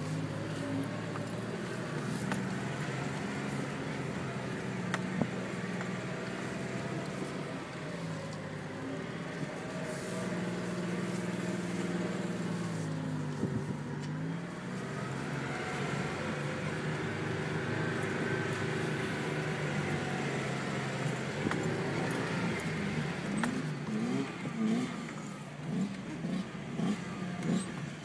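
Toyota 4Runner engine heard from inside the cabin while crawling a dirt off-road trail, its pitch rising and falling with the throttle. Near the end, dirt bike engines rev in short, repeated blips.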